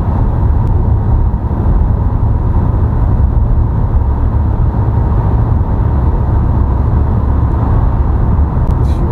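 Steady low rumble of road and engine noise heard inside a car driving through a road tunnel.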